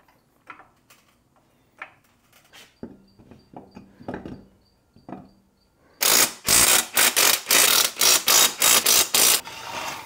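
Cordless impact wrench hammering lug nuts onto a tractor's front wheel hub in a quick run of short, loud bursts, starting about six seconds in and stopping about three and a half seconds later. Before it come light clicks and knocks as the wheel is fitted and the nuts are started.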